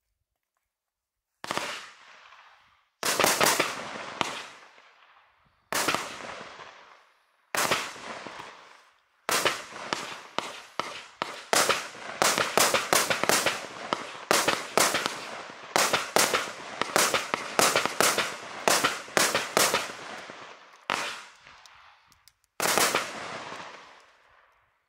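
A 24-shot firework cake firing. Sharp reports come a couple of seconds apart at first, then in a fast run of shots through the middle, with two last shots near the end. Each report is followed by a fading crackle from the burst.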